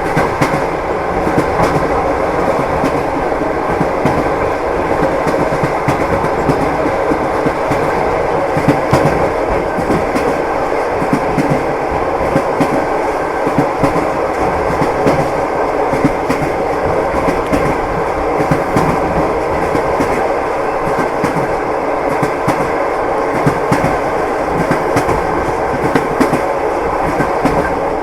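Train running on the rails: wheels knocking over the rail joints in many short clicks over a steady rolling rumble.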